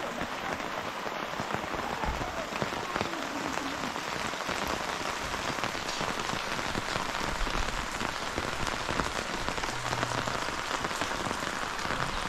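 Heavy rain falling steadily: a dense, even patter of drops.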